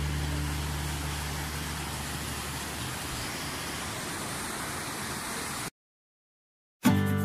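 Steady rushing hiss of a mountain river flowing over rocks, under the last low notes of a music track that fade out over the first few seconds. About a second of dead silence follows near the end, then new music with plucked notes begins.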